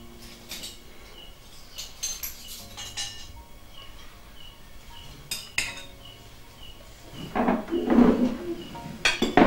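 Metal spoons clinking and scraping on ceramic plates as a plate of food is set down and eaten from, in scattered short clinks, with louder clatter about seven to eight seconds in.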